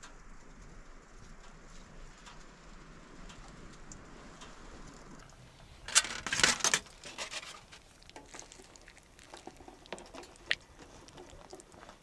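A soft steady hiss, then a burst of clattering about six seconds in and scattered light clicks and knocks after it, from a spoon and dish being handled.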